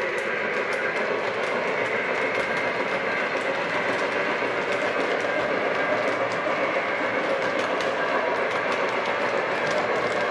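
O gauge model freight train rolling past on the layout's track: a steady rumble of wheels with many quick, irregular clicks as the cars run over the rail joints.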